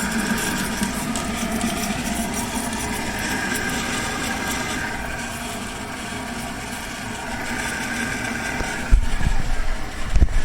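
American Standard Cadet pressure-assist toilet tank refilling, water running into the pressure vessel with a steady hiss. Low thumps come in about nine seconds in.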